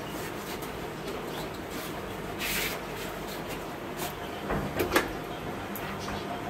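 Door being shut and latched by hand: a few sharp clicks and knocks of the door and its fittings, the loudest about five seconds in, after a brief rustle. A steady low room hum runs underneath.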